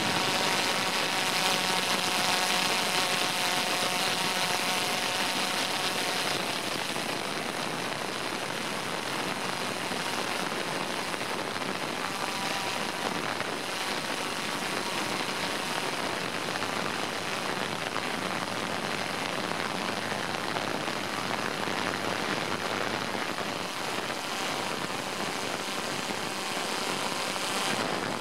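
Camera drone's rotors whirring in flight: a steady hiss with faint whining tones that fade after the first few seconds.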